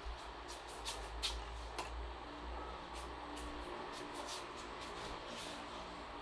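Quiet room noise with a low rumble and a dozen or so faint, scattered clicks.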